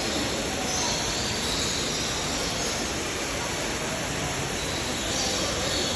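Steady rushing background noise, with a few faint high bird chirps over it.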